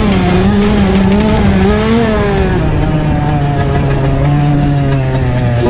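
Small motocross dirt bike engine under riding, heard from the on-board camera: the revs climb to a peak about two seconds in, then drop and hold steady.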